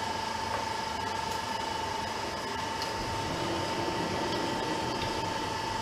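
Metal lathe running steadily, a constant mechanical hum with a steady whine.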